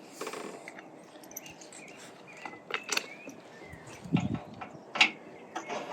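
Metal parts of a roof-rack roller kit being handled: scattered clicks and knocks, with a dull thump about four seconds in and a sharp knock about a second later.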